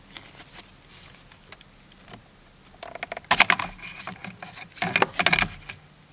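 Plastic clicking and rattling as a Chevrolet Cruze's turn signal switch is released at its tabs and worked out of the steering column, in two bursts about three and five seconds in.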